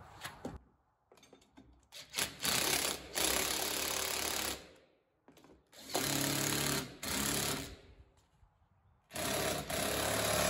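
Ridgid 18V cordless impact driver hammering nuts down on U-bolts, in three bursts of about two seconds each.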